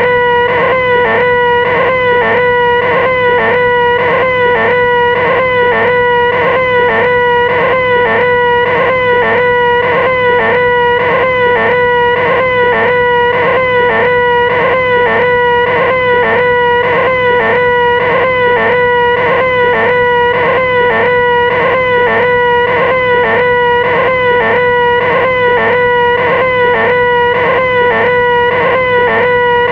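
A person's voice holding one long, loud, high-pitched 'ehhh' whine, the 'most annoying sound in the world' gag, at one steady pitch with a regular wobble about twice a second and no break for breath.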